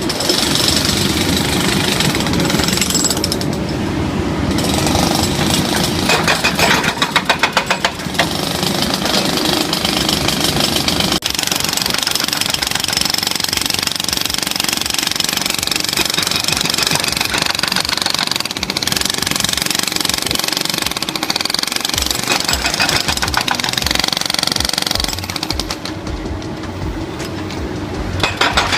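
Hydraulic hammer breaker on a backhoe excavator pounding with rapid repeated blows.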